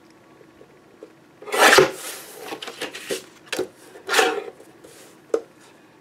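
Patterned paper sliding and rustling across a paper trimmer's bed as it is shifted into place for cutting. It comes in several short scraping bursts, the loudest about one and a half seconds in and another about four seconds in.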